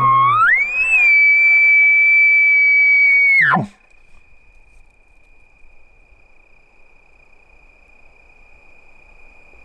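Man-made elk bugle blown through a bugle tube to locate a bull elk: a low start sliding up into a high whistle, held steady for about three seconds, then falling away sharply.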